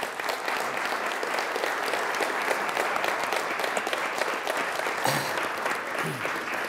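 Audience applauding steadily, a dense crackle of many hands clapping at the end of a speech, with a couple of brief voices calling out about five and six seconds in.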